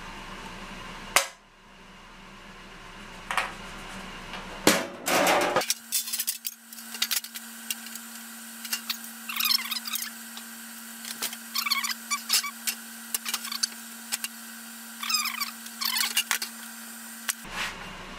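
A thin aluminum fuel-tank panel being handled and set into a wooden bending fixture: scattered clinks, taps and knocks of sheet metal against wood and steel, the sharpest about a second in. A steady low hum runs under the middle part.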